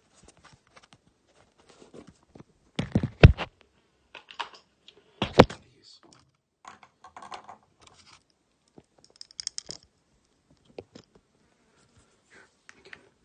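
Small objects being rummaged through and handled: scattered clicks, rustles and light clatter. There are two sharp knocks, about three and five seconds in.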